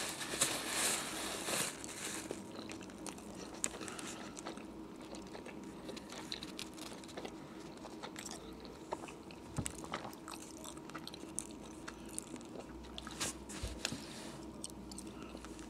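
A person chewing a mouthful of Subway roast beef sandwich close to the microphone, with scattered small mouth clicks and smacks.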